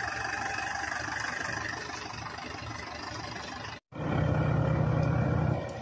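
Tractor diesel engine running with a steady drone and a high whine: the Mahindra Arjun Novo 605 stuck in mud. After a sudden break about four seconds in, a louder, deeper engine drone follows and drops back near the end.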